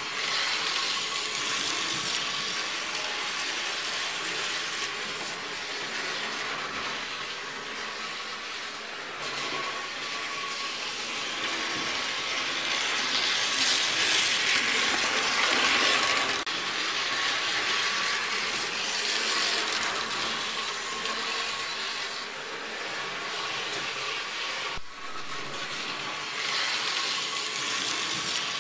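Märklin HO model locomotive running on the layout's track: a steady whirr and clatter of its electric motor, gears and wheels on the rails, with a faint steady whine. It grows louder as the locomotive passes close by, about halfway through. There is a brief break near the end.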